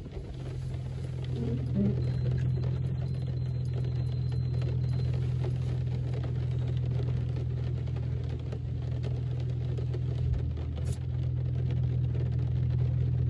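Dodge Charger R/T's V8 engine heard inside the cabin, running at steady revs as a constant low drone that drops away right at the end.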